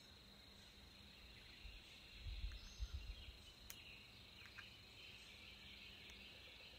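Near silence: faint outdoor ambience with a steady, high insect buzz, and a few soft low thumps a little past two seconds in.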